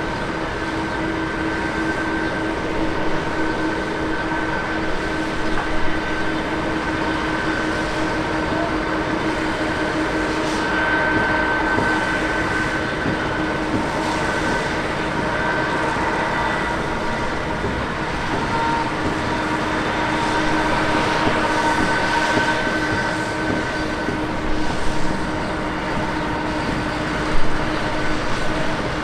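Jet airliner engines running steadily at low power, a constant rushing rumble with a high whine of several held tones that swells slightly now and then.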